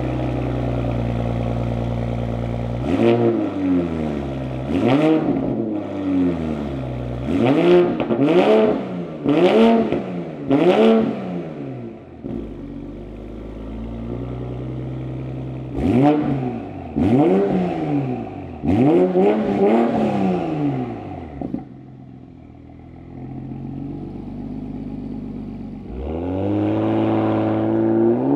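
2020 Toyota Supra fitted with an AWE Tuning exhaust and Injen intake, just after a cold start. It runs at a loud high idle, then gives two runs of quick throttle blips, each rev rising and falling back to idle. Near the end it pulls away under acceleration, the engine note climbing steadily.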